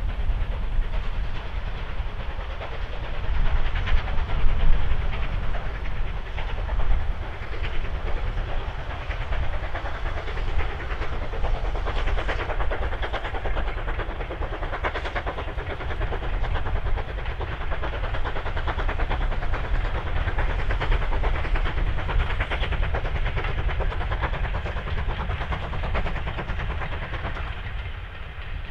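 Steam locomotive hauling a passenger train past at a distance: a continuous exhaust and train rumble with a deep low rumble beneath, easing off near the end.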